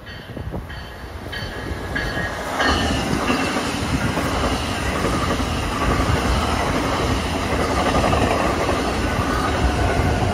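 New Jersey Transit multilevel push-pull commuter train running through the station at speed without stopping. Faint rail noise builds, then from about two and a half seconds in comes the loud, steady rush and rumble of the cars passing close by.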